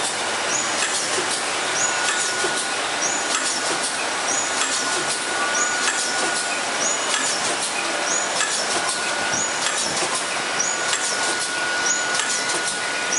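Multi-track vertical form-fill-seal pouch packaging machine running: a steady mechanical clatter with a short high sound repeating about every three-quarters of a second as the machine cycles.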